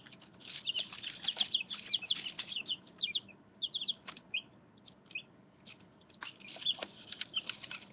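Young chicks in a brooder peeping: many short, high peeps in quick clusters, with a few soft taps among them.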